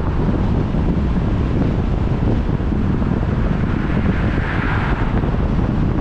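Wind buffeting the microphone: a loud, steady rushing noise heaviest in the low rumble, swelling slightly about four seconds in.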